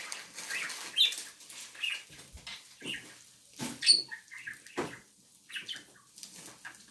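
Caged pet birds chirping in short, scattered calls, mixed with light clicks and rustling of handling.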